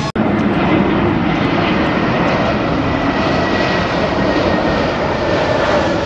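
Jet airliner flying low on landing approach: a loud, steady engine rush with a faint whine, after a brief dropout at the very start.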